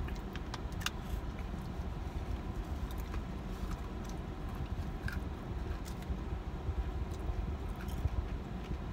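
Steady low rumble inside a car, with a few faint clicks and mouth sounds from eating an ice cream cone.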